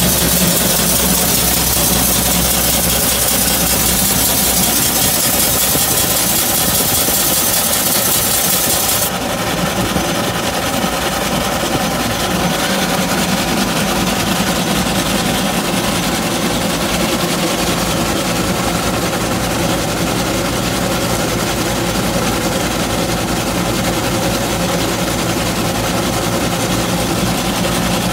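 1923 Minneapolis steam traction engine running steadily on the belt, driving a threshing machine through oats. A loud hiss of escaping steam stops suddenly about nine seconds in, leaving the steady running of the engine and thresher.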